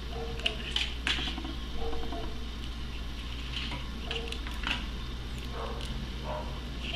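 Hands handling a Kinder Surprise egg and its small plastic parts: scattered small clicks and rustles with a few brief squeaks, over a steady low hum.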